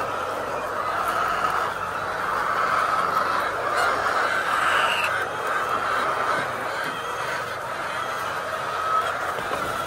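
A large flock of layer chickens calling all at once, a continuous dense chorus of overlapping clucks and chatter with no single bird standing out.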